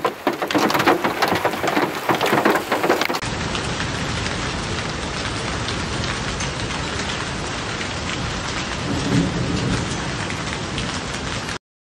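A hailstorm pelting down, with many sharp clattering strikes of hailstones on hard surfaces. About three seconds in there is a cut to a steadier, denser hiss of hail and rain falling, which cuts off abruptly near the end.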